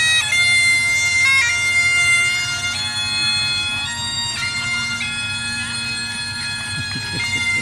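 Bagpipes playing a melody of held notes over a continuous steady drone.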